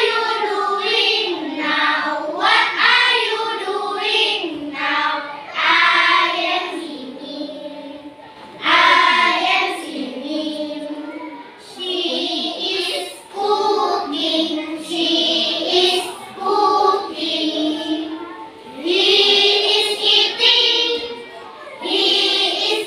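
A class of young children singing together in unison, reciting their English vocabulary as a song. The singing comes in phrases with short breaks between them.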